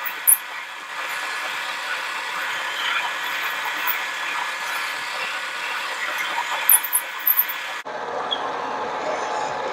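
Harbor Freight mini lathe running under a cut, the tool turning metal, giving a steady machine hiss with a few sharp high clicks and squeaks near the start and around seven seconds in. About eight seconds in the sound changes suddenly: the high hiss drops out and a steadier, lower running noise carries on.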